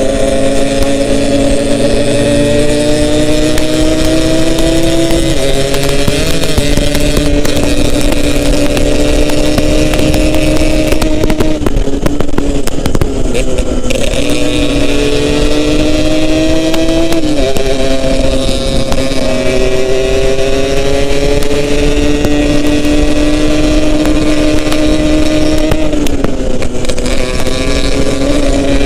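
Yamaha RX-King two-stroke single-cylinder engine pulling under way, its pitch climbing slowly and then dropping several times as the rider shifts or eases the throttle, over steady wind and road noise. The engine eases off briefly about twelve seconds in.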